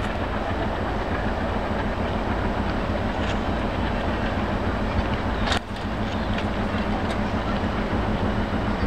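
Indian Railways WDM-2B diesel locomotive with its ALCO 251 V16 engine, working under power as it pulls its train out of the station: a steady low engine rumble and drone. A single sharp click a little past halfway.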